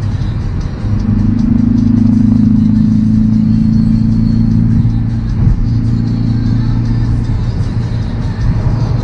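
Interior drone of a Hyundai Veloster N's 2.0-litre turbocharged four-cylinder cruising at highway speed, a steady engine and road hum. Music is playing over it.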